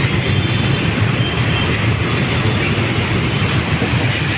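Motor traffic driving through a flooded street: a steady low rumble of engines, with water washing around the wheels.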